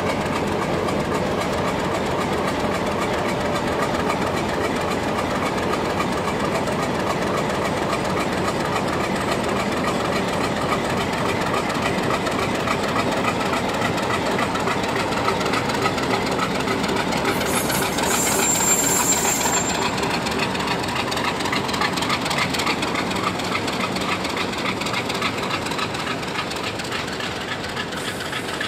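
Pakistan Railways HBU-20 class diesel-electric locomotive passing slowly, its engine running and its wheels rolling over the rails. A brief high-pitched sound comes about two-thirds of the way through.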